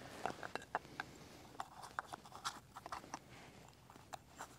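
Faint, irregular crackles and clicks of Teflon (PTFE) thread-seal tape being pulled off the roll and wrapped tightly around a pipe's threads.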